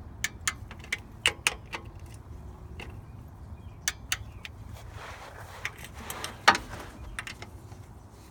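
Metal hand tools clicking and clinking against the transmission pan bolts: a scatter of sharp single clicks, then a short rasping stretch about five seconds in that ends in one loud click.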